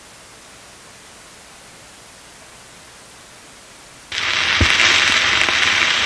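Faint steady hiss from the playback system, then about four seconds in a phonograph stylus is set down on a spinning 78 rpm shellac record. There is a sudden jump to loud surface hiss and crackle from the lead-in groove, with a single thump as the stylus lands.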